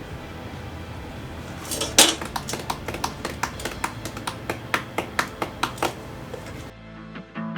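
A quick run of sharp clicks or taps, about four a second, starting about two seconds in and lasting several seconds over a steady background hum. Near the end the sound cuts and plucked guitar music begins.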